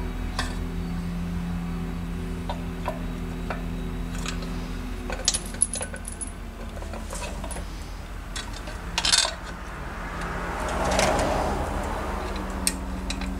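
Small metal parts and a screwdriver clinking and tapping against a Tomos A35 moped engine's cases during reassembly: scattered sharp clicks, a louder clatter about nine seconds in, and a brief scraping rustle shortly after, over a steady low hum.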